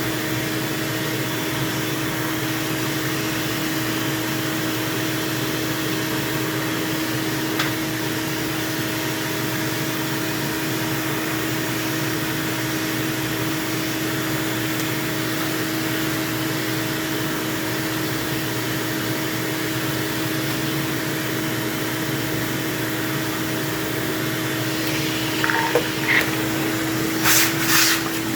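A vacuum cleaner running steadily with a constant motor whine, sucking out dirt and hair. A few short knocks and rattles near the end.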